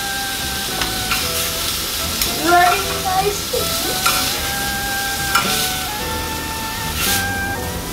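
Scallops searing in a cast-iron skillet, sizzling steadily, with a few sharp clicks scattered through.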